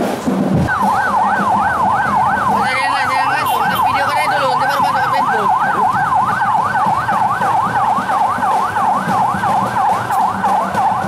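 Electronic siren yelping, its pitch rising and falling evenly about three times a second. It starts just under a second in and keeps going steadily.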